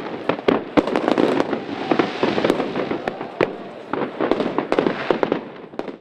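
Fireworks display going off: an irregular rapid string of sharp bangs and crackles, dying away near the end.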